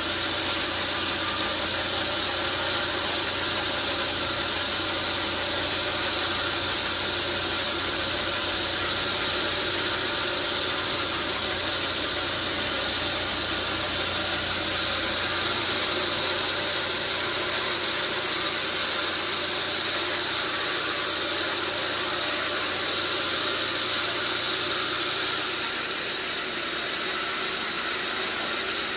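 Sawmill saw machinery running steadily: a dense mechanical noise with a high whine in it. The deep low hum fades out about halfway through.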